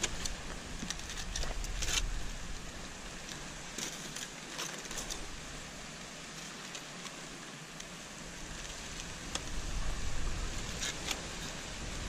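Aluminium foil crinkling and rustling as it is pulled open by hand around a cooked fish, with many small sharp crackles scattered throughout.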